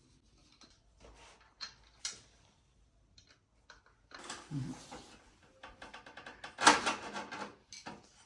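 Scattered clicks and knocks of hardware being handled, with the loudest burst, a dense rattling clatter, about two-thirds of the way through.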